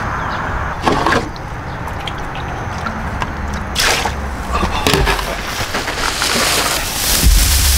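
Water sloshing and splashing in red plastic basins as a basin is tipped and emptied, with several louder splashes, the loudest near the end.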